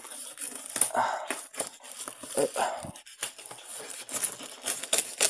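Clear plastic wrap crinkling and tearing as a blade slices it open along the seam of a box, in short irregular rustles and rips.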